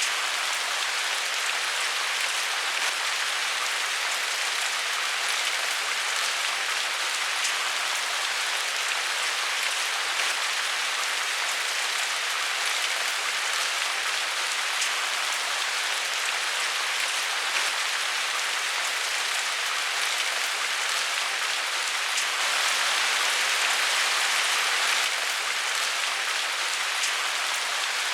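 Steady rain falling: an even hiss with faint scattered drop ticks, swelling a little for a couple of seconds about three quarters of the way through.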